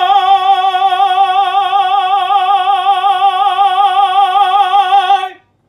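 A single high sung note in operatic style, held for about five seconds on one pitch with steady, even vibrato, then cut off sharply near the end.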